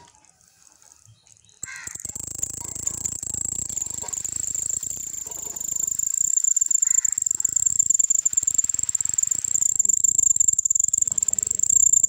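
Male cricket stridulating with its wings raised, rubbing them together to make a high, steady, very fast-pulsed trill. The trill starts about two seconds in and grows louder midway.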